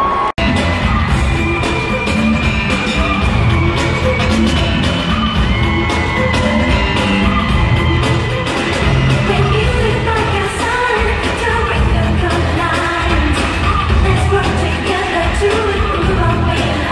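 Live pop concert music with singing, played through an arena sound system and recorded from the crowd. The audio drops out for an instant just after the start.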